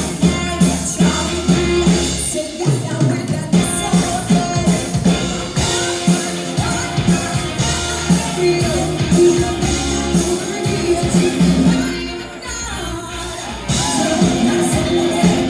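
Live all-female rock band playing a song: a drum kit keeps a steady beat under a woman singing. The band eases off briefly about twelve seconds in.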